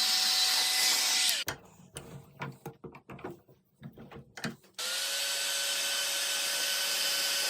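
An electric power tool's motor running steadily, then switched off and winding down about a second in. A few light knocks and handling sounds follow, then the motor starts again just before five seconds and runs steadily.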